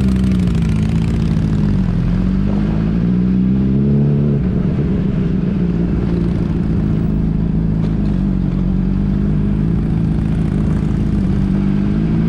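Motorcycle engine running while riding, its pitch dipping and then climbing over the first four seconds before holding steady.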